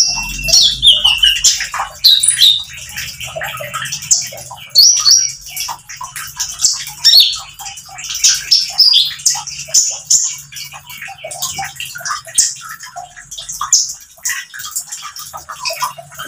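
Male Van Hasselt's sunbird (kolibri ninja) in its rapid 'nembak' song: a fast, continuous run of high, sharp chirps and short falling notes.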